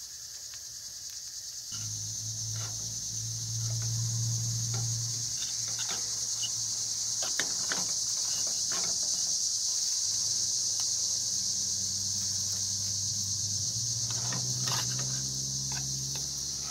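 A fork scraping and tapping against a thin aluminum skillet as cornmeal hoe cakes are pushed and turned, heard as scattered clicks over a steady high hiss and low hum that begin about two seconds in.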